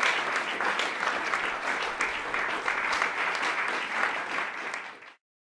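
Audience applauding, a dense patter of hand claps that fades and then cuts off sharply about five seconds in.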